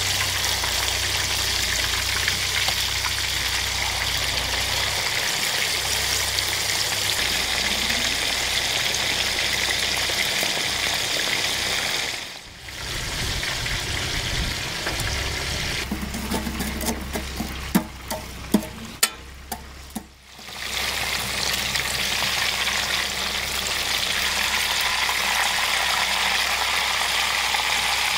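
Steak frying in hot oil in a wide round metal pan: a steady hissing sizzle that briefly drops out twice, with a quick run of sharp clicks shortly before the second drop.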